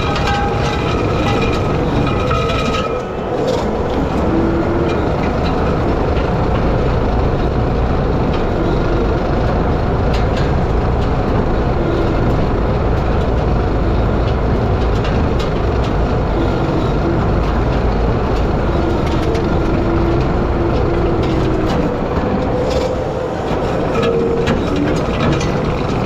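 Skid steer engine running under load while its hydraulic power rake's spinning drum churns through dry soil and small sticks, a steady rumble with a constant patter of clicks and rattles from debris hitting the drum.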